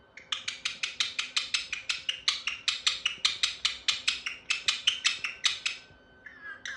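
A rapid run of sharp clicks, about six a second, lasting about five and a half seconds, then a short whistled bird call near the end.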